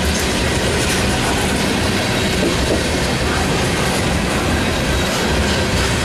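Freight train of covered hopper cars rolling past close by, steady and loud, the steel wheels running over the rails.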